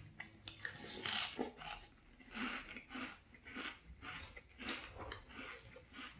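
Frosted Flakes in milk being chewed: a louder crunchy burst about a second in, then steady rhythmic crunching chews, a little under two a second.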